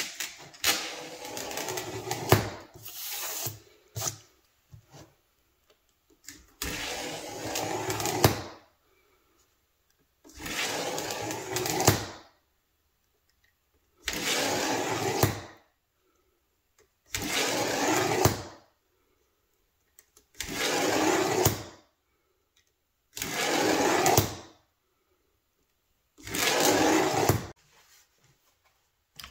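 A hand-held power tool's motor run in short bursts of one to two seconds, about every three seconds, each burst ending in a sharp peak.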